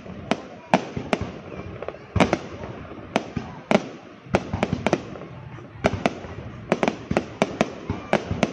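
Aerial fireworks exploding in quick, irregular succession: sharp bangs, about two or three a second, over a continuous crackle.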